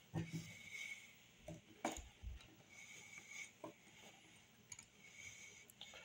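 Faint, scattered clicks and taps of small metal screws and a screwdriver being handled and set into a motorcycle carburetor's float bowl.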